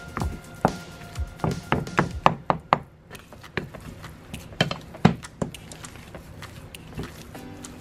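A wooden spatula mashing boiled potatoes in a glass bowl: irregular knocks and clacks of wood against glass, bunched in the first three seconds and again around five seconds in. Background music plays underneath.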